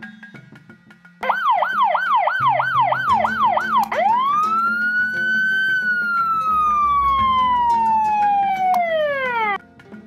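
Fire truck siren sound effect. It starts with a fast warbling yelp of about three swoops a second, then switches to one long wail that rises, falls slowly and cuts off near the end. Soft children's music plays underneath.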